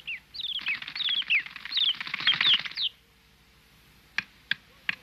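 A small bird chirping, a quick run of short falling chirps for about three seconds, then several sharp taps about a third of a second apart.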